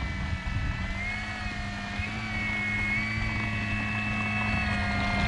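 Electric motor and propeller of a Flex Innovations RV8 G2 60E RC plane running at taxi throttle on the grass, a steady whine. Its pitch steps up slightly about a second in and again just after two seconds as throttle is added.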